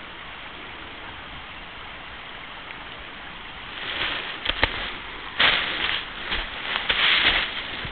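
A steady rushing background, then from about four seconds in, irregular crunching and knocking of footsteps on a log footbridge, with several sharp knocks.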